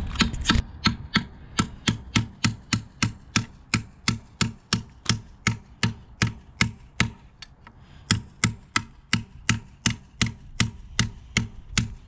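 Hand sledgehammer striking steel in quick, steady blows, about three to four a second, driving a half-inch carriage bolt out of a steel over-the-tire skid steer track.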